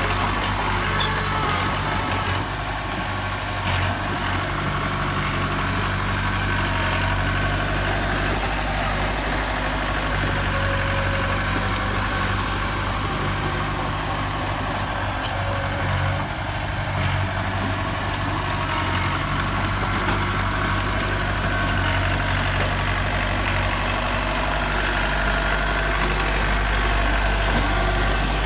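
Heavy diesel engine of earthmoving machinery running steadily with a low, continuous drone, growing slightly louder near the end.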